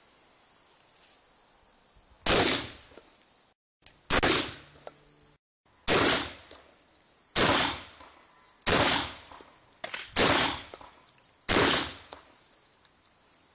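Hatsan Escort MPA pump-action 12-gauge shotgun fired seven times, about one shot every second and a half. Each shot is a sharp, loud report with a short ring-off.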